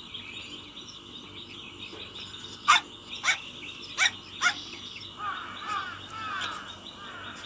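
Four short, sharp animal calls in the second and third seconds, then a run of quick bird chirps, over a steady high insect drone.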